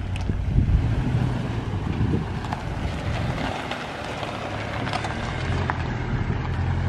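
Toyota Tundra's V8 engine idling steadily as a low, even hum, with wind buffeting the microphone.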